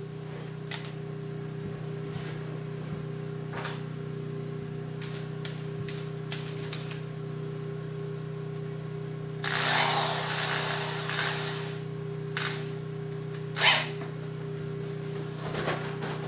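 Corded electric drill motor running steadily with a hum. About ten seconds in there is a loud two-second burst of the bit cutting into wood, and a few sharp clicks and knocks are scattered through.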